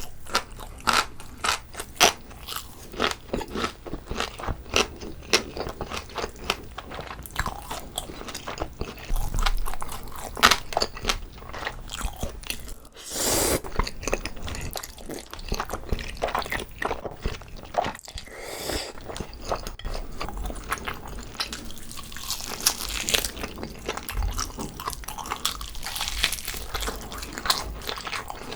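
A person biting and chewing whole pig's trotter close to the microphone: a dense run of crunching clicks and crackles, with a longer rushing sound about thirteen seconds in.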